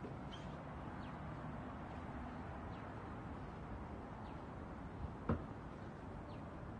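Outdoor ambience: a steady background hiss with faint short high bird chirps every second or two, and one sharp knock about five seconds in.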